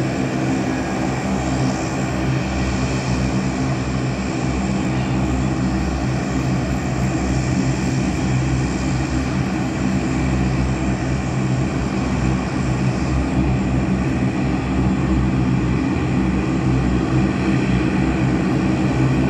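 C-130 Hercules–type four-engine turboprop transport plane running its engines on the runway: a steady, loud propeller drone with a constant high turbine whine above it.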